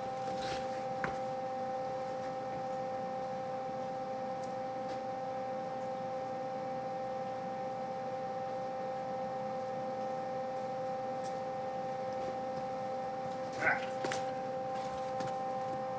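Steady machine hum made of two held tones with fainter higher ones, a sound typical of a motor's whine. A single brief handling noise about fourteen seconds in is the loudest moment.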